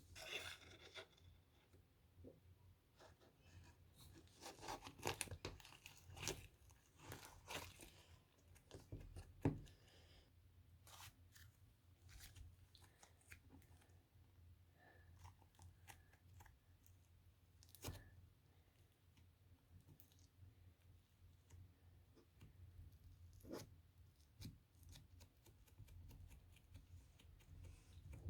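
Faint tearing and rustling of packaging being opened, with scattered light taps and clicks, busiest in the first ten seconds.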